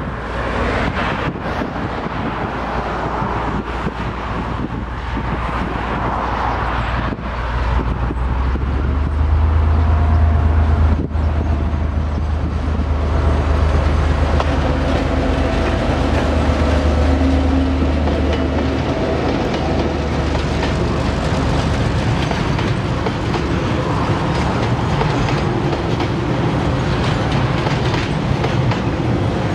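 KiwiRail DC-class diesel-electric locomotive, with an EMD 12-645 engine, passing close by at the head of a freight train. Its low engine drone is loudest from about eight to nineteen seconds in. After that come the steady rumble and clickety-clack of container wagons rolling past.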